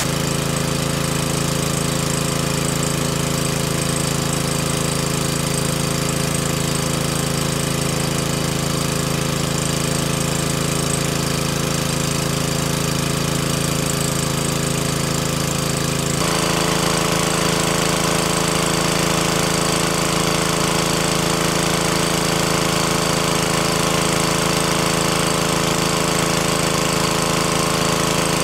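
Small petrol-engine water pump running steadily at a constant speed, with water rushing from its discharge hose. About sixteen seconds in, the engine's tone changes abruptly and gets slightly louder.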